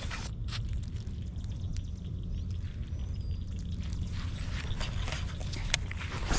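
Steady low rumble of wind on the microphone, with a few scattered sharp clicks and a faint high chirp about three seconds in.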